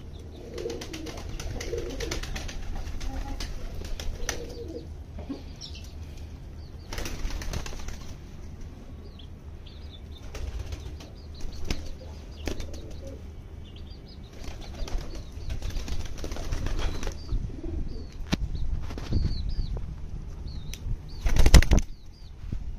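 White fantail pigeons flapping their wings in repeated flurries close to the microphone, with the loudest flurry near the end, and light clicks and scuffles in between.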